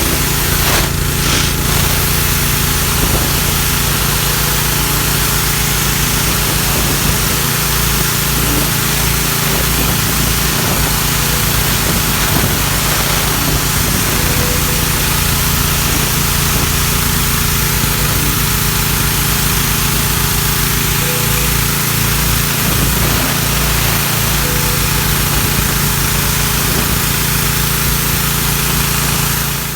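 Gas-engine pressure washer running steadily under load, with the engine's hum under the hiss of the high-pressure water jet cleaning concrete.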